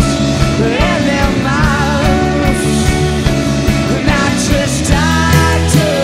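Live rock band playing: electric guitars, bass and keyboard.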